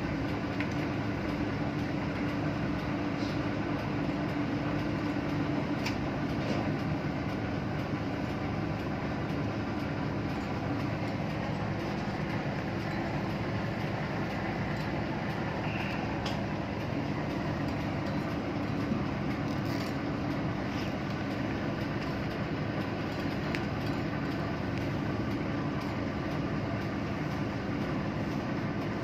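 Steady drone of ship's machinery and ventilation heard in an engine control room, a constant hum with even noise that does not change, with a few faint clicks.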